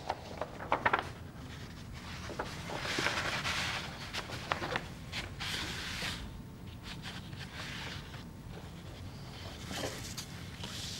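Sounds of things being handled in a room: a few sharp clicks and knocks in the first second, then rustling and scattered small knocks.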